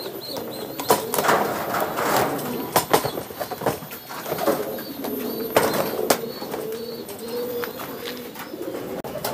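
Domestic pigeons cooing in the loft, a low repeated murmur. Scattered knocks and taps as cardboard pigeon shipping boxes are stacked and handled.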